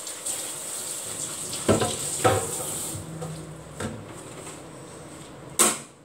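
Four sharp knocks over a faint steady hiss. The hiss fades about halfway through, and the last knock, near the end, is the loudest.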